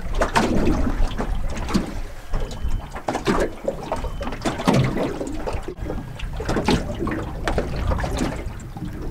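Small waves lapping and slapping irregularly against the hull of an anchored aluminium tinny, over a low rumble of wind on the microphone.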